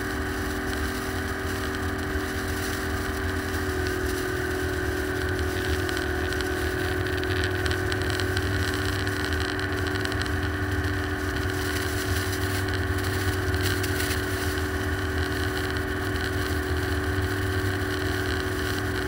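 ATV engine running at a steady cruise, its pitch stepping up slightly about four seconds in.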